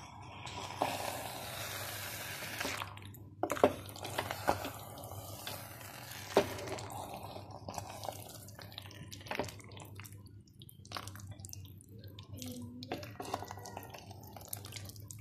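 Wooden spatula stirring a thick, sticky mash of ripe plantain cooked in ghee and melted jaggery in a pan, with wet squelching and bubbling. A few sharp knocks come where the spatula strikes the pan, with smaller clicks after.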